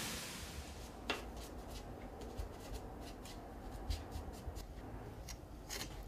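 Quiet hiss with scattered faint clicks and ticks, the clearest about a second in.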